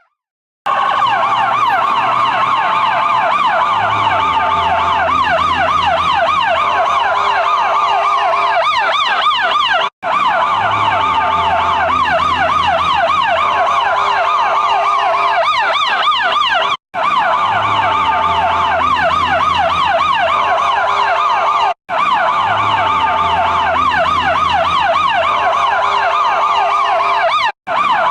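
Electronic siren (a Federal Signal eQ2B-type unit) sounding rapid up-and-down yelping sweeps with steady horn-like tones coming and going underneath, cut by four brief dropouts.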